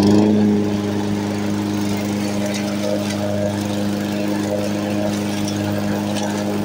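Weibang WB537SCV petrol lawn mower engine running, its pitch climbing at the very start and then holding steady, while the self-propelled mower drives forward across the grass.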